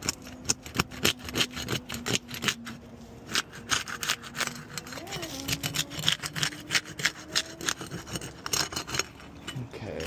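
A flat pry bar scraping and prying under brittle asphalt 3-tab shingles, breaking them loose during the tear-off, as a run of quick scraping strokes and clicks.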